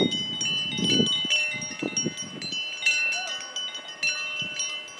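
Many cowbells on grazing cows ringing out of step, their bright overlapping tones struck again and again like a church bell peal. A low rumble sits under the first half.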